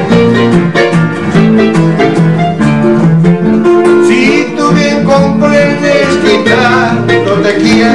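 Casio CTK-711EX electronic keyboard playing an instrumental passage of a song: a melody in string- and guitar-like voices over a steady accompaniment. A wavering higher lead line comes in about halfway and again near the end.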